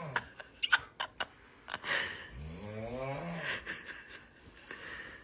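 Snoring: one long, pitched snore in the middle whose pitch rises and then levels off, with the start of the next breath just after. A few sharp clicks come in the first second or so, the loudest of them under a second in.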